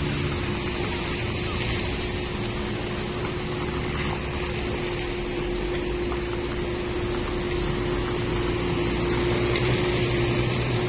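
Road traffic: cars driving slowly past with their engines running, over a steady hum.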